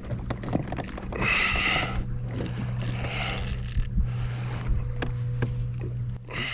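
Spinning fishing reel working against a hooked fish, with mechanical whirring and clicks from the reel. The whirring comes in two stretches about a second in and near the middle, over a steady low hum.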